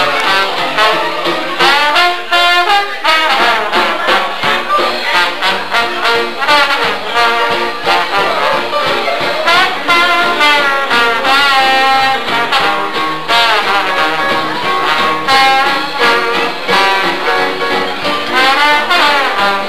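Trombone playing a live jazz solo with the band, sliding up and down between notes, over a steady beat.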